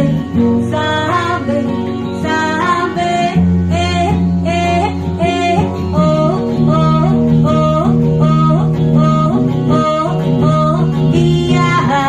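A song played back from a reel-to-reel tape: a sung or played melody moving note to note over guitar accompaniment and sustained low notes.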